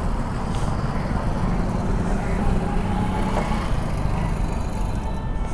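A motorcycle engine running steadily, low and even throughout.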